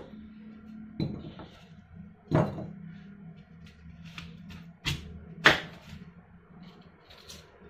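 Serrated kitchen knife cutting through an apple and knocking on the cutting board: four sharp knocks, about a second in, about a second and a half later, and two close together around five seconds in, the last the loudest.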